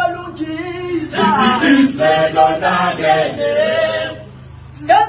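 Male choir singing a cappella, several voices together on held and moving notes. The singing drops away about four seconds in and comes back sharply near the end.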